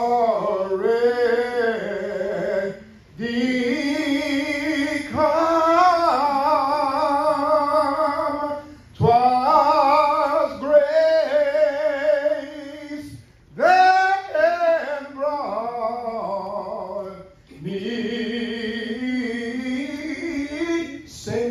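A song with a solo singing voice, holding wavering notes in phrases of a few seconds with short breaks between them.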